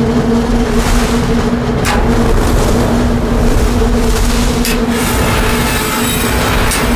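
Mine cart rolling fast along rails: a steady rumble with a low whine held underneath, and a few sharp clacks, one about two seconds in and another near five seconds.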